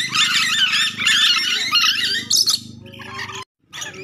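Nuri dora parrots chattering and squawking in shrill, rapid calls, dense for the first two and a half seconds and then thinning out. A steady low hum runs underneath, and the sound cuts out completely for a moment about three and a half seconds in.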